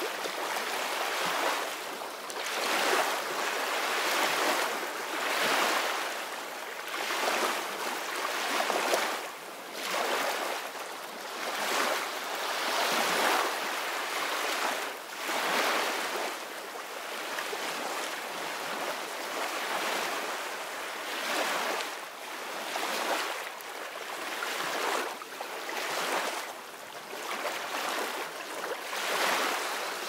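Gentle surf breaking on a sandy beach: a steady hiss of washing foam that swells and eases every second or two as each small wave comes in.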